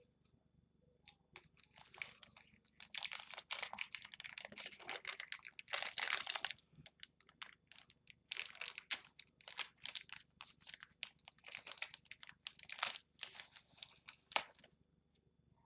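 Plastic packaging crinkling and rustling in quick, irregular bursts as it is handled, with a short pause about halfway through.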